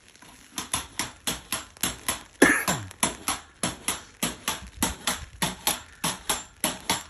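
Spring pogo stick bouncing on paving slabs: a short clack of the rubber tip and spring on each landing, about three times a second in a steady rhythm. It starts about half a second in, and one landing about two and a half seconds in is louder.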